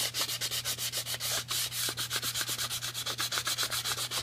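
Green burnishing pad rubbed quickly back and forth by hand over wood wet with maintenance oil paste, a rhythmic scrubbing of about six or seven strokes a second. This wet-sanding works out a scratch and closes the wood's grain over the oil.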